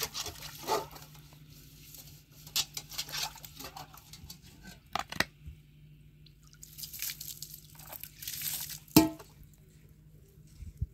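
Handling noises: scattered clicks and crinkling, rustling sounds, a longer rustle about seven seconds in, then one sharp knock about nine seconds in, over a faint steady hum.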